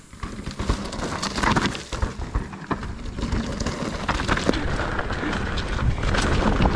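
Mountain bike riding down a rough, rutted dirt trail: tyres rumbling over the ground with frequent knocks and rattles from the bike, and wind on the microphone. It grows louder about a second in as the pace picks up.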